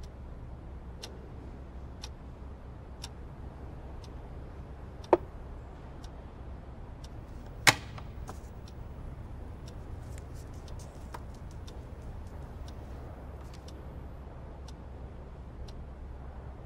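A clock ticking about once a second over a low steady hum, with two sharp clacks about five and eight seconds in, the second the louder.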